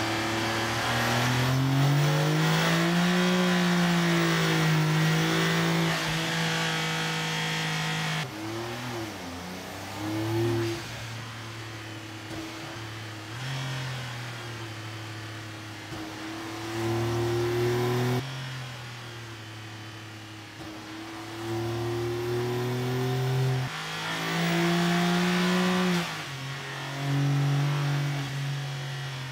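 Turbocharged car engine running on a dynamometer test bench, revving up and then holding at steady high speeds under load. The engine note changes abruptly twice, jumping between different speeds.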